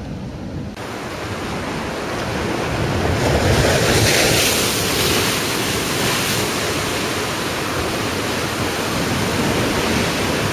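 Ocean surf breaking and washing over a rocky lava shore, swelling loudest a few seconds in, with wind buffeting the microphone.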